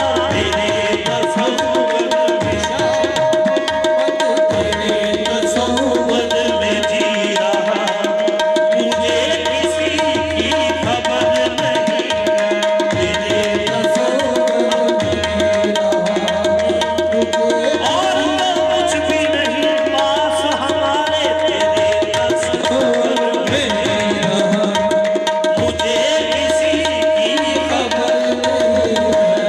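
Live qawwali music: tabla drumming and harmonium, with a singing voice weaving over one steady held note.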